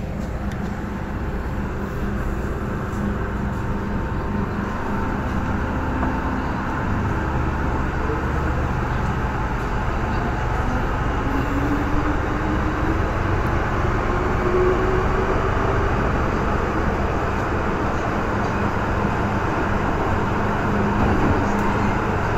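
MTR M-train electric multiple unit pulling out of a station, heard from inside the car: steady running and rail noise with a motor whine that climbs in pitch as the train picks up speed.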